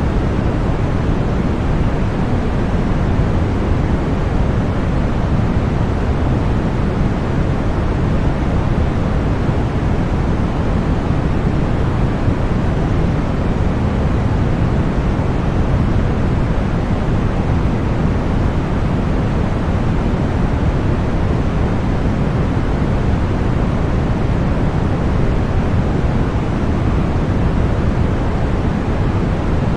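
Continuous generated white noise: an even hiss with no rhythm, breaks or changes, fuller in the low end than the high.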